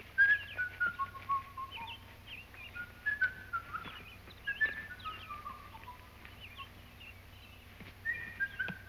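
A person whistling a tune in four short falling phrases with pauses between them, over faint bird chirps.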